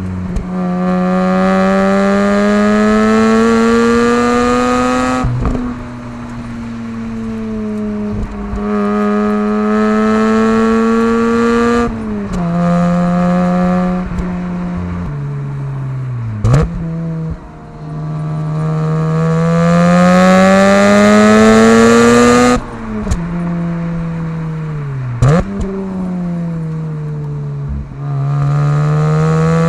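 Mazda RX8's 13B Renesis two-rotor rotary engine exhaust under hard driving. Its pitch climbs as it revs and falls back sharply several times through the gear changes, with a brief click at some of the drops.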